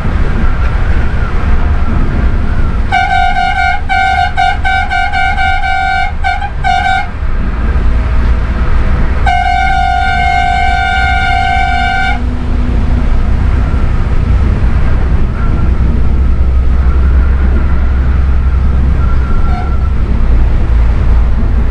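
A vehicle horn sounding a rapid string of short toots for about four seconds, then, after a pause, one steady blast of about three seconds. Underneath runs the continuous low rumble of a bus moving along the highway.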